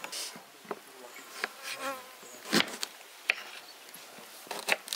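A flying insect buzzing close by, its pitch wavering, and three sharp knocks of a knife cutting lemons on a wooden cutting board in the second half.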